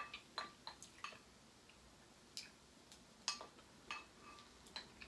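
Chopsticks clicking against a small glass bowl as food is picked up: about ten faint, short clicks at an uneven pace, some with a brief glassy ring.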